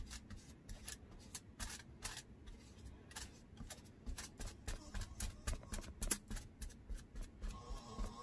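Paintbrush scratching and dabbing sealer onto an air-dry clay piece resting on aluminium foil: quick, irregular scratchy strokes, several a second.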